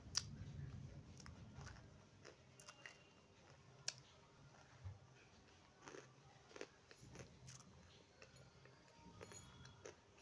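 Lumps of edible clay being bitten and chewed close to the microphone: faint, scattered crisp crunches and clicks, the sharpest just after the start and at about four seconds.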